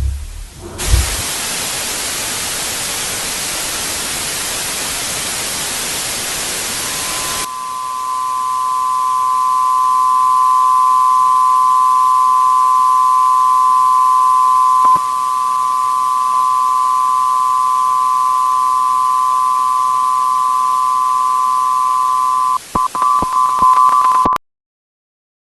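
Loud broadcast static hiss, then a steady electronic two-note tone over quieter static. The tone stutters and cuts off abruptly near the end.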